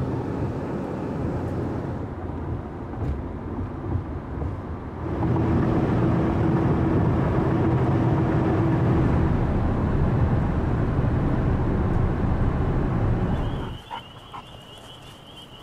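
Road and engine noise of a car driving, heard from inside the cabin. It gets louder and steadier about five seconds in, with a droning hum. Near the end it cuts off abruptly to a much quieter outdoor background with a steady high-pitched tone.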